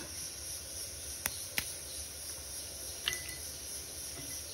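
Steady high-pitched hiss with a few sharp clicks, three of them in the first few seconds.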